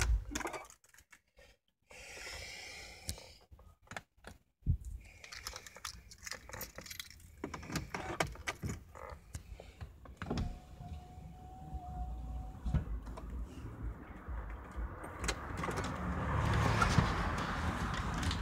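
Mercedes-Benz W211 engine switched off at the key, its idle cutting out right at the start. Then come keys jangling and scattered clicks of the key and interior being handled, with a steady whine for about two seconds midway.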